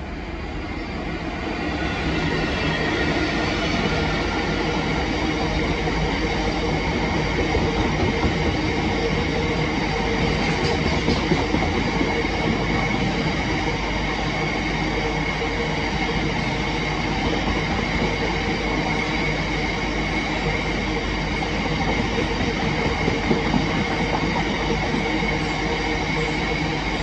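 Class 66 diesel locomotive passing at the head of a freight train, then a long rake of GBRf box wagons rolling by steadily, wheels rumbling and clattering on the rails with a thin high wheel squeal. It swells over the first two seconds, then holds steady.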